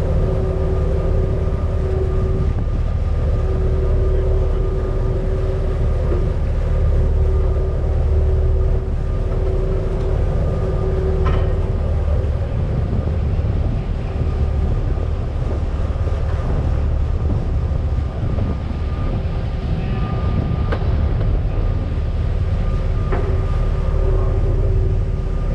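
A large fishing boat's engines running steadily under way. There is a deep continuous drone with a steady hum-like tone riding above it.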